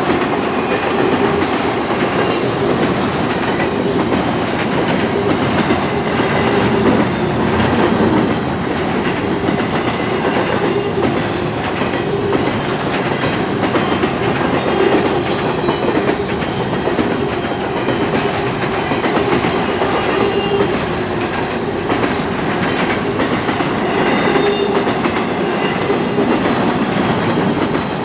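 Canadian Pacific freight train's cars rolling past, a steady rumble of steel wheels on rail.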